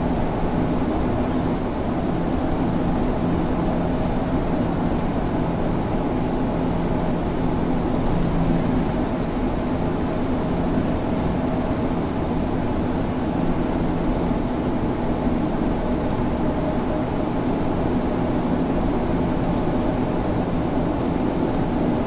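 Car driving steadily on an expressway: continuous road and tyre noise with a low engine hum, unchanging throughout.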